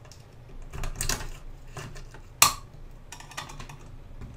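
Screwdriver blade scraping and clicking against a radio's metal chassis while digging out an old tuning-capacitor rubber grommet gone hard as a rock. Scattered scrapes, with one sharp metallic click about two and a half seconds in.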